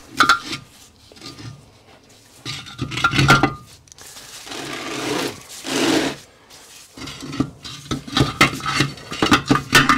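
Metal clinking and scraping as a Stuart steam engine's crankshaft is worked by hand in the engine frame: a cluster of ringing clinks about three seconds in, a longer rubbing scrape around five to six seconds, and a run of quick clinks near the end.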